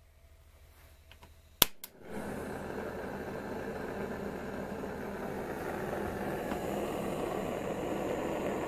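Two sharp clicks, then a small propane burner lights and runs with a steady hiss of gas and flame that grows slightly louder.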